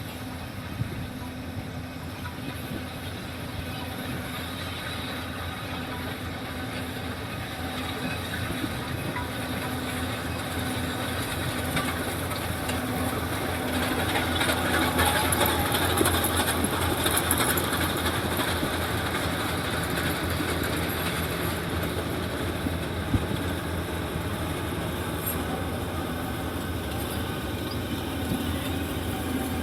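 Yanmar 70GV combine harvester running steadily in a rice field, its engine and machinery clattering; the sound swells to its loudest about halfway through, then eases off a little.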